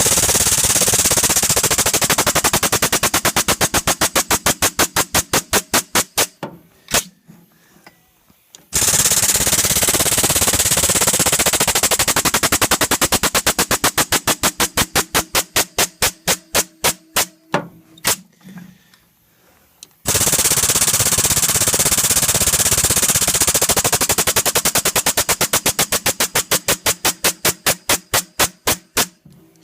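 Power hammer pounding hot steel in three runs, each starting as a rapid blur of blows that slows to single strikes before stopping, as the blade blank is widened and the old die marks are flattened out.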